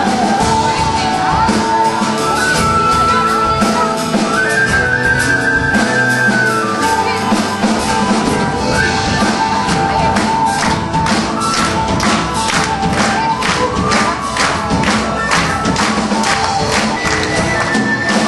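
Live band music led by a tin whistle playing an ornamented melody, with guitar and drums underneath. About halfway through, the drums pick up into a steady driving beat.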